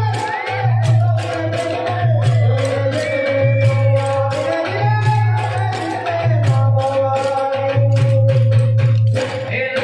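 Gujarati devotional raas/garba folk music: a voice singing a melody over dense hand-drum and percussion strokes, with a low drum pulse repeating about once a second.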